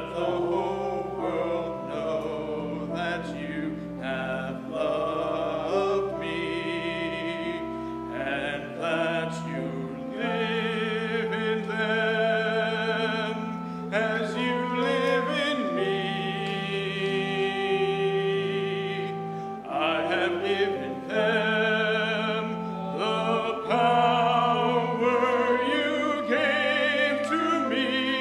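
Sacred song sung with keyboard accompaniment: a singing voice with vibrato holds long notes over sustained chords.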